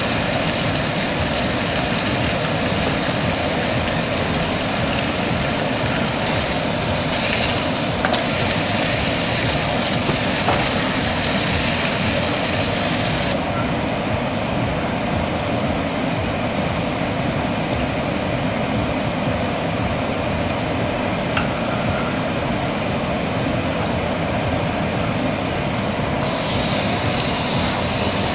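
Meat frying in a pan on the stovetop: a steady sizzle over the even drone of the range hood fan, with a few light clicks of tongs. The hissing top of the sizzle falls away about halfway through as the pan is emptied, and comes back near the end when a raw steak goes in.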